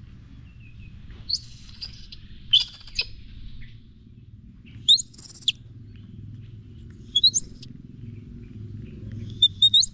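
Baby monkey giving about five short, high-pitched squeals that rise steeply in pitch, over a steady low background rumble.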